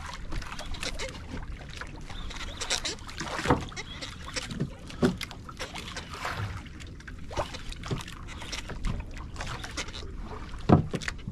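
Water slapping against the hull of a small boat at sea, with irregular knocks and thuds on the hull and a low wind rumble. The loudest knock comes near the end.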